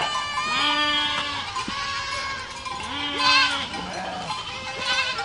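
Herd of goats bleating, several overlapping calls, a new bleat starting about every second.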